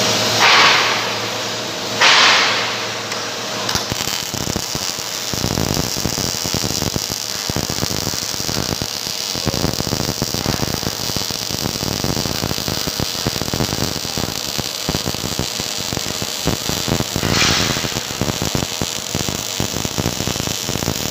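MIG welding arc from an OTC MIG welder, crackling steadily as the wire feeds into the weld pool. Two short, loud bursts of noise come in the first two seconds, and the steady crackle sets in about four seconds in.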